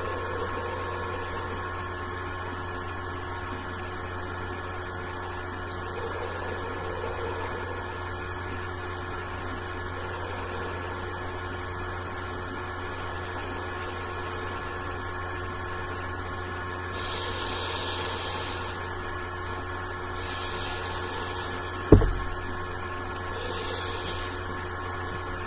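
Steady electrical hum of room tone, with a few soft breathy hisses in the second half as a large bubblegum bubble is held and blown. Near the end, one sharp thump with a short falling tone.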